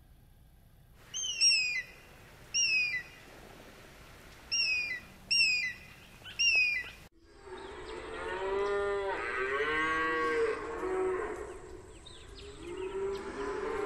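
A bald eagle gives five short, high-pitched, falling piping calls. Then cattle moo: one long moo, followed by a second, weaker moo near the end.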